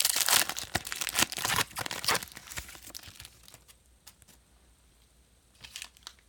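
Trading-card pack wrapper being torn open and crinkled: dense crackling for about three seconds that then dies down, with one more short rustle near the end.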